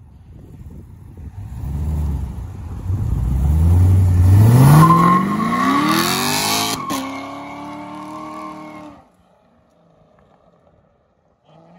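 2017 Corvette Stingray's 6.2 L V8, breathing through long-tube headers with the catalytic converters deleted, accelerating hard from a standstill. The engine note climbs in pitch for several seconds, drops at an upshift with a sharp crack about seven seconds in, then fades as the car drives away.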